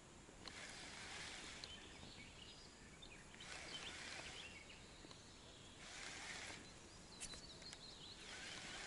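Quiet riverside stillness with faint bird chirps and soft, short bursts of noise recurring every second or two.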